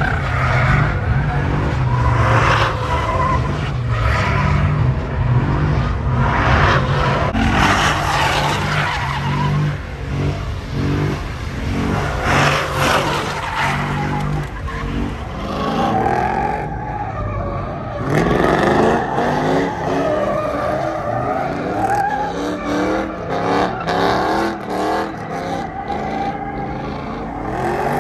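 Pickup trucks doing burnouts: engines held at high revs while the rear tires spin and squeal on the pavement. A little past halfway the revs dip, then climb again, with a run of sharp cracks near the end.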